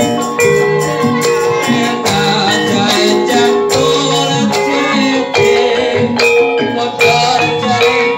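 Javanese gamelan ensemble playing live: rows of bonang pot gongs and metallophones ring out an interlocking melody over kendang barrel-drum strokes, in a steady, continuous rhythm.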